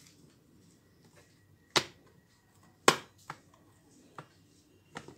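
Sharp clicks and taps as a replacement drum cleaning blade is pressed and seated into its mounting channel on a Kyocera TASKalfa drum unit: two loud clicks about a second apart, then three fainter taps.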